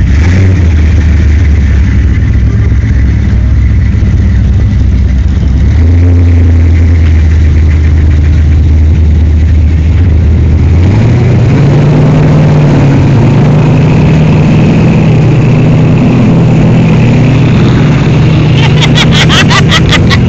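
Off-road truck engine running loud and steady in a low note. About eleven seconds in it revs up to a higher pitch and holds there while the truck works through deep mud. A quick burst of clicking comes near the end.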